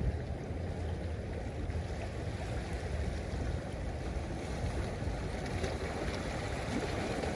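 Ocean waves washing in a steady rush, with wind rumbling on the microphone.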